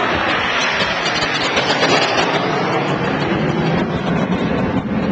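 Jet noise from five BAE Hawk jet trainers flying past in line astern: a loud, steady rush that swells to its loudest about two seconds in.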